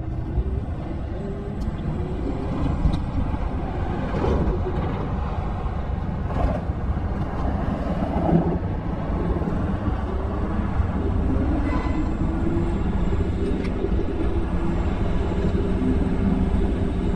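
Wind and road rumble from riding a Segway Ninebot D40X electric kick scooter: a steady low rumble with a faint humming tone and a few light clicks.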